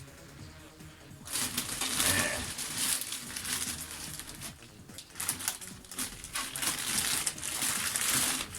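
Irregular rustling and scraping as a PC case and its packing are handled, in bursts of a second or two.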